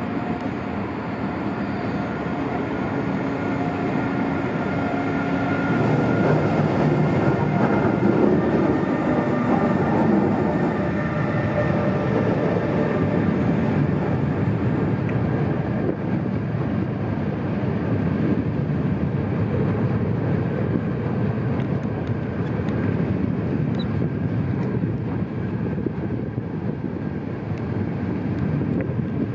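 NS intercity trains hauled by TRAXX electric locomotives running along the platform tracks: a continuous rumble of wheels on rail with faint steady whining tones, swelling loudest about six to twelve seconds in as a train passes close.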